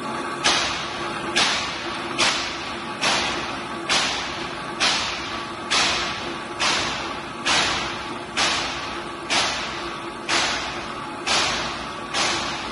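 A grinding wheel grinding the hard-faced flight of an oil expeller worm as it turns, with coolant running. The grinding hiss swells sharply about once a second and fades, in a steady, even rhythm.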